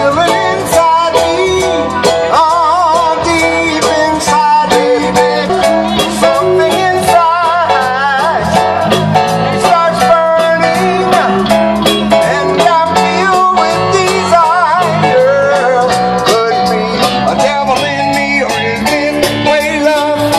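Live band playing a Motown song: singing over guitar and a steady beat.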